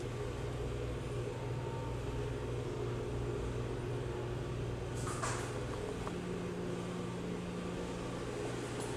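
Steady low hum of commercial kitchen machinery, with a brief clink about five seconds in.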